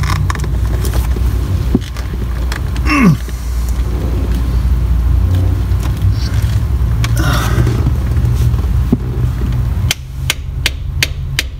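Light clicks and knocks from the shift knob and lever of a C5 Corvette's six-speed shifter being handled as the knob is fitted back on, with a quick run of sharp clicks near the end. Under it runs a steady low hum that drops away near the end.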